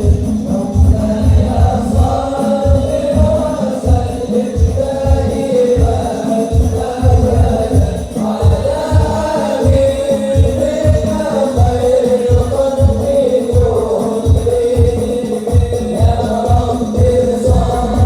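Hadroh sholawat music: voices singing a devotional melody over Indonesian frame drums with a heavy, driving bass drum beat of about three strokes a second.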